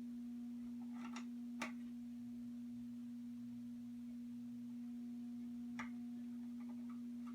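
A steady, low electrical hum with a couple of faint clicks.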